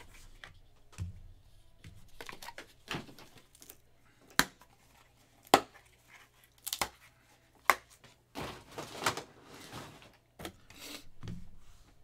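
A cardboard card box and a stack of plastic card cases being handled on a table: about four sharp clicks or taps through the middle, with rubbing and rustling between and near the end.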